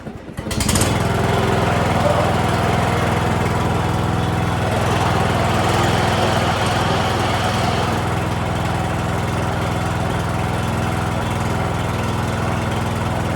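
Riding lawn mower engine comes in abruptly about half a second in and then runs steadily. It starts now that the clutch safety switch works.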